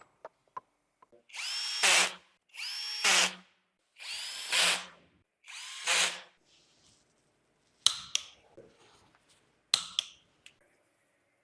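Power drill run in four short bursts of about a second each, each spinning up with a rising whine. Later come a few sharp metallic clicks.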